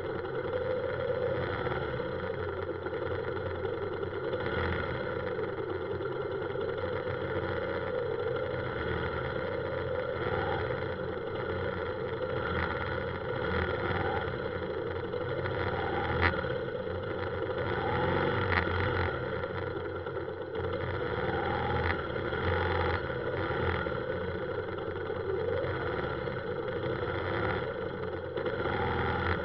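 Motorbike and scooter engines idling and creeping forward in a dense traffic jam: a steady engine hum, with a brief sharp click about halfway through.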